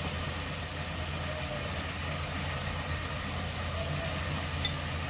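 Steady low machine hum with an even hiss above it, unchanging throughout, and one faint click near the end.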